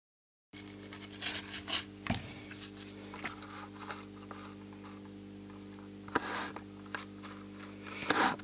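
A small brush scrubbing the soldered side of a circuit board, a few short scratchy strokes about a second in, then light rubs and handling of the board. A steady low electrical hum runs underneath.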